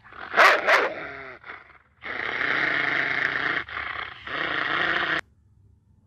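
Large dog barking twice in quick succession, then a long, rough growl with two short breaks that cuts off abruptly about five seconds in.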